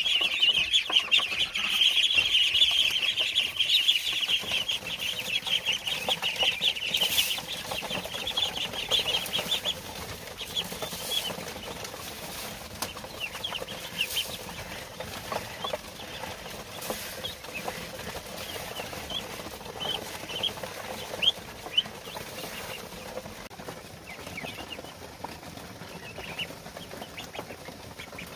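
A crowded pen of ducklings peeping: a dense, loud chorus of high peeps that thins to scattered single peeps after about ten seconds.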